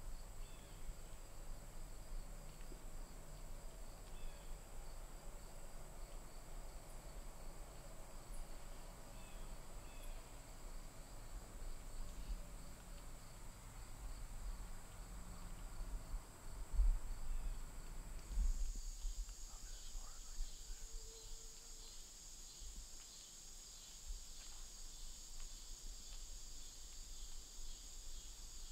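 Steady high-pitched insect chorus, with a low rumble beneath it in the first two-thirds. About two-thirds of the way through the sound changes abruptly: the rumble stops and the insect drone grows louder.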